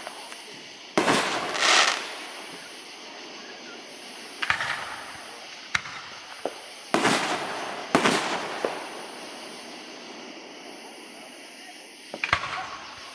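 Aerial fireworks shells bursting in a display: a series of sudden bangs, several in quick pairs, some trailing off over about a second.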